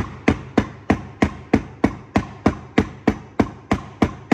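A copper-and-rawhide mallet strikes a wooden block in steady, evenly spaced blows, about three a second. The blows are driving a new front wheel bearing onto the hub of a Ford Transit Mk7 without a press.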